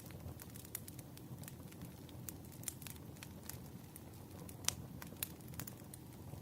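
Campfire burning: a low steady rumble of flames with irregular sharp crackles and pops from the burning wood, one louder pop about two thirds of the way through.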